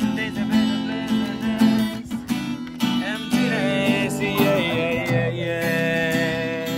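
Acoustic guitar strummed in a steady rhythm, with a melody line bending over the chords in the middle.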